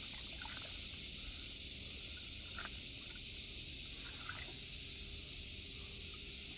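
Steady high-pitched chorus of insects, with a faint single click about two and a half seconds in.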